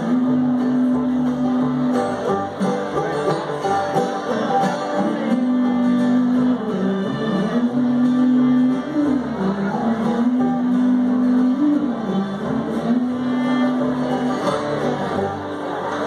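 Acoustic bluegrass band playing an instrumental passage: fiddle holding long notes that slide between pitches over strummed acoustic guitar, banjo and upright bass.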